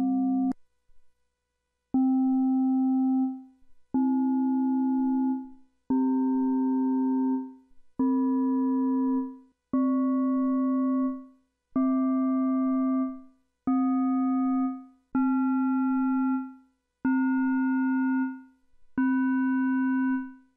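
Elektron Digitone FM synth playing the same note about ten times, one every two seconds or so, each held about a second and a half and starting with a slight click. The modulator is set to a different non-whole-number ratio for each note, so the upper partials shift to new, inharmonic places each time while the fundamental stays put.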